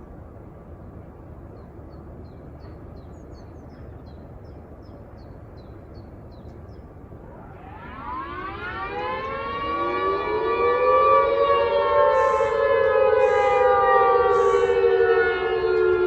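Nuclear-site outdoor warning sirens starting up for a test of the emergency wail signal. About halfway in, two siren tones wind up from low to high pitch, one a second or so after the other. They hold loud near the top and slowly sag. Faint bird chirps come before them.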